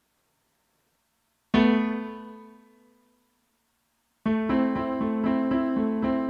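Electronic keyboard playing an electric-piano sound: a single chord struck about a second and a half in and left ringing to fade out, then from about four seconds in, chords played in a steady repeated rhythm.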